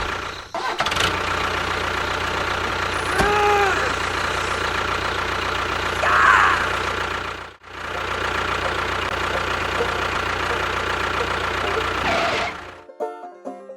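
A small engine running steadily, with a brief cut about halfway through. It stops near the end, where music starts.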